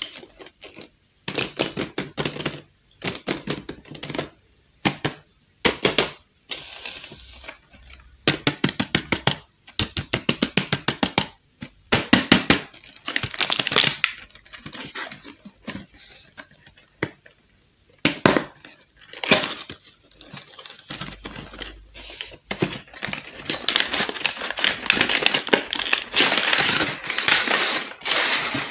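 Hands opening cardboard toy packaging and handling a clear plastic blister tray: repeated bursts of rustling, scraping and clicking.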